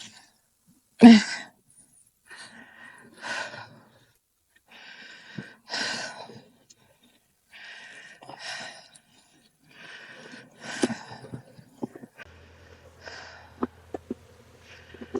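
Bee smoker bellows being puffed over and over: short hisses of air about every two seconds, several in quick pairs, the first the loudest. A few light knocks and a faint low hum come in near the end.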